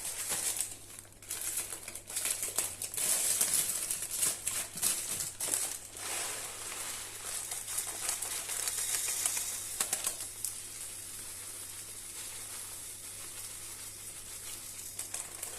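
Pepper mill grinding black pepper: an irregular gritty crackling that settles into a steadier grinding rasp about six seconds in.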